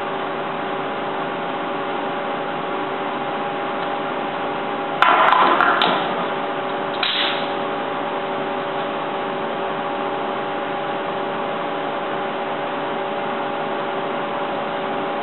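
Steady background hum with hiss. About five seconds in, a burst of rustling and a few sharp clicks lasting about a second as the nylon cord and padlocks are handled, with a shorter burst about two seconds later.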